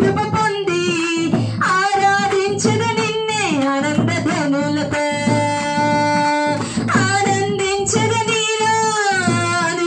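A woman singing a Christian devotional song into a microphone, amplified and loud, with long held notes over a steady beat of a hand drum.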